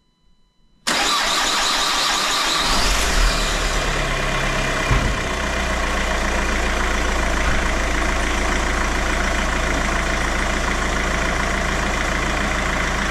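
Peugeot 307 CC's 2.0 HDi four-cylinder diesel engine starting about a second in, then settling into a steady idle.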